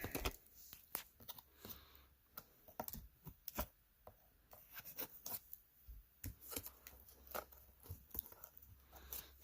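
Cardboard packaging being worked open by hand: irregular clicks, scrapes and short tearing sounds.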